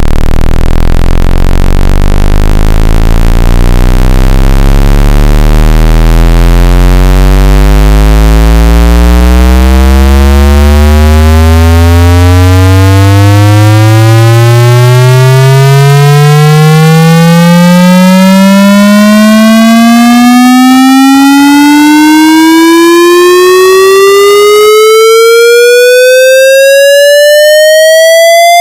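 Loud, buzzy electronic tone sweeping steadily upward in pitch, from a deep hum to a high whine, without a break.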